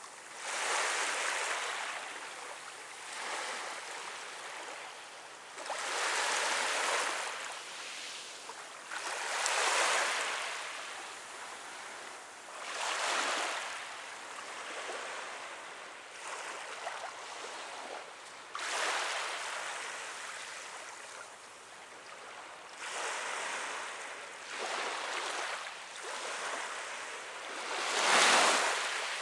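Small waves washing onto a sandy beach. A soft rush of surf swells and fades every few seconds.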